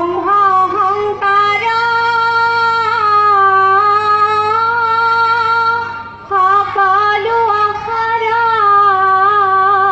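Assamese Dihanam devotional singing: one high voice draws out long, slowly wavering held notes on sung vowels, with a brief breath-break about six seconds in.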